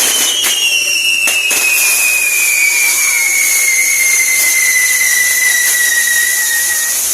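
Fireworks on a castillo pyrotechnic tower burning with a loud, steady hiss. A single whistle falls slowly in pitch until it stops near the end, and a few sharp cracks sound in the first second or two.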